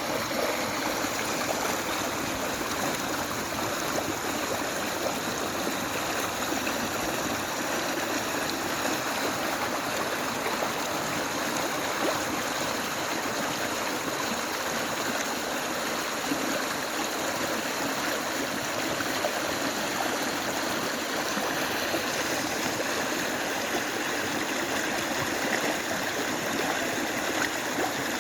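River water flowing steadily over rocks: a continuous rushing babble with fine gurgling and splashing detail.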